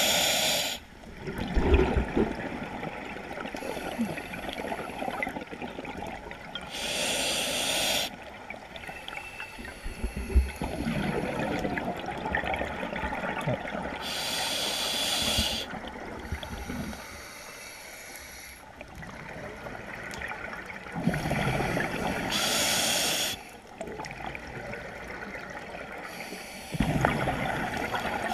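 Scuba regulator breathing recorded underwater, a slow cycle of a breath about every seven seconds. Each inhalation is a sharp hiss through the demand valve, followed by the gurgling rumble of exhaled bubbles.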